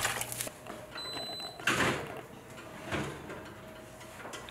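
Covered enamelware roasting pan set onto a wire oven rack and slid in: a short scraping clatter of metal on metal, with a brief high beep just before it and a lighter knock about a second later.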